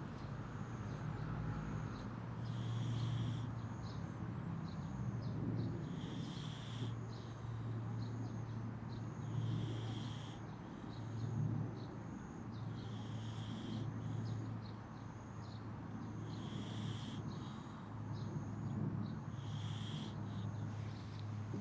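A fat domestic cat snoring in its sleep, a slow rhythm of snoring breaths every three seconds or so.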